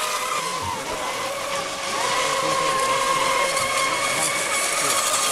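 Radio-controlled monohull racing boats running at full speed, their motors giving a steady high whine over the hiss of the hulls through the water.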